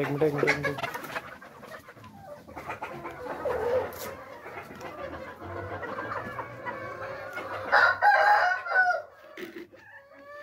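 A flock of desi (native-breed) chickens clucking and calling, with a louder drawn-out call about eight seconds in.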